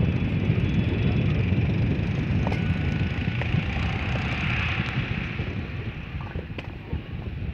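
Wind buffeting the microphone: an uneven low rumble that eases off in the last couple of seconds.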